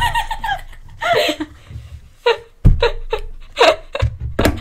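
Two girls laughing close to the microphone in a string of short bursts, with a low rumble of bumping at the start and again near the end.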